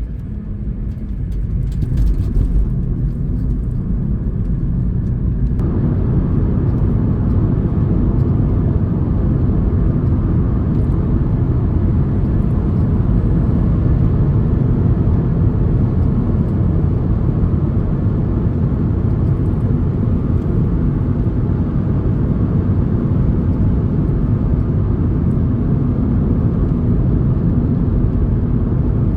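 Vehicle driving along a road: a steady low engine and tyre rumble, which suddenly gets fuller and a little louder about five seconds in.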